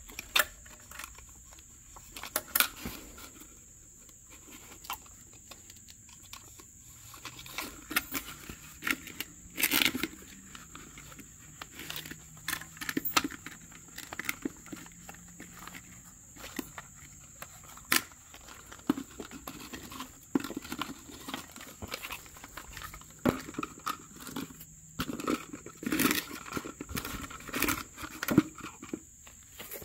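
Irregular crackling and rustling with sharp clicks, like dry material being handled, scraped or torn by hand, with a faint low hum at times.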